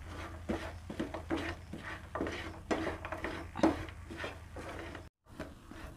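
Wooden spatula stirring and scraping sticky jaggery-coated fried banana pieces around a non-stick frying pan: a run of irregular scrapes and light taps, broken by a brief silent gap near the end.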